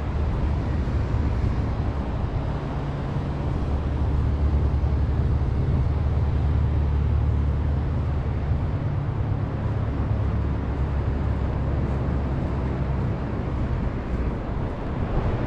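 A steady low motor rumble, as from a vehicle engine running, strongest in the middle stretch and easing off toward the end.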